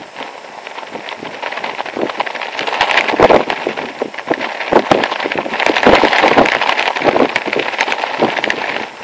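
Nylon shell-suit jacket and trousers flapping and snapping in strong wind: a dense, rapid crackle that grows louder about three seconds in and stays strong until near the end.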